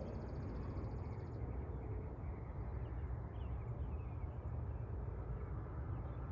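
Open-air ambience: a low steady rumble with a few faint bird chirps, and a faint, fast, high trill in the first second and a half.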